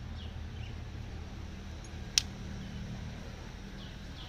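Steady low background hum with one sharp click about two seconds in, and a few faint short high chirps.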